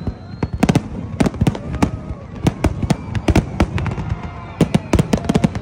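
Aerial fireworks bursting overhead in quick succession: a dense run of sharp bangs and crackles.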